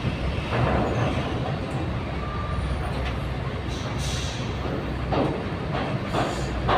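Heavy trucks' diesel engines idling with a steady low rumble, broken by several short noisy bursts in the second half.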